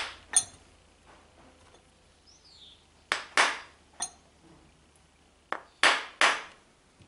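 Wooden mallet rapping the steel barrel of a Colt Walker black-powder revolver to drive it back onto the cylinder arbor, so that the barrel wedge can pass across. Sharp knocks in three groups: two near the start, three around the middle and three near the end, some with a short metallic ping.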